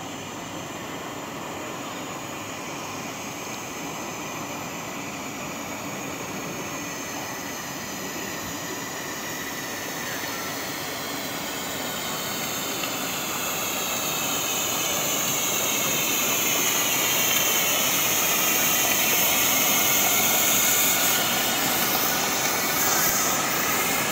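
Small steam launch coming closer across the water: a steady rushing hiss of steam that grows louder as it nears and eases slightly near the end.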